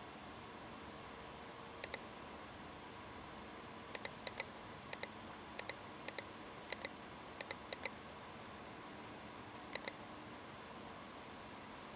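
Small, sharp clicks, about a dozen, most of them close double clicks, spaced irregularly over several seconds, above a faint steady hiss.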